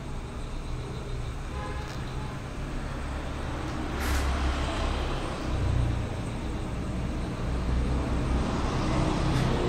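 Steady low rumble of background traffic noise, swelling briefly about four seconds in.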